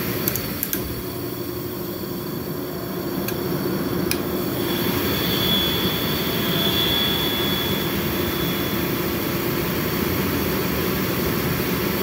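Furnace blower motor running, with steady air rush and motor hum, stepping down from its cooling speed to its lower fan speed while its weak run capacitor (1.9 µF where 5 µF is rated) is still in place. A few light clicks come in the first four seconds, and a thin high whine is heard for a few seconds midway.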